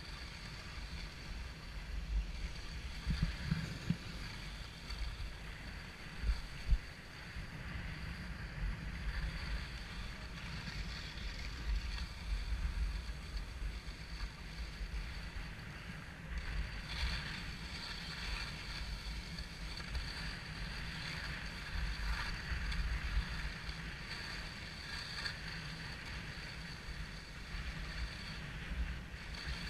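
Skis hissing and scraping over groomed snow while being towed up a button drag lift, with low wind rumble on the microphone. A couple of short knocks come in the first seven seconds.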